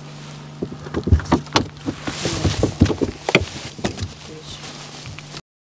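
Irregular knocks and thumps on a fishing boat's floor as a just-landed walleye flops and is grabbed, over a steady low hum.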